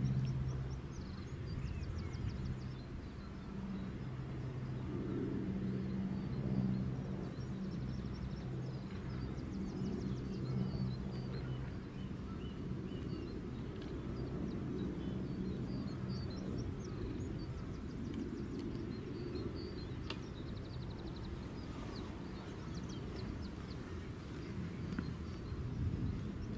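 Small birds chirping on and off over a steady low engine hum, which fades somewhat about halfway through.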